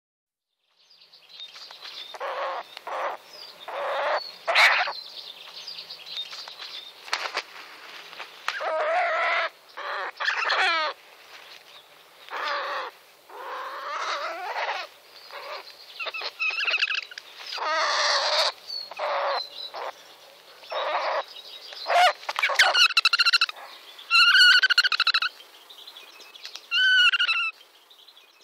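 Long-eared owl giving its terrified distress call while attacked by a goshawk: a long series of loud, harsh calls, turning near the end into clearer pitched calls that waver in pitch.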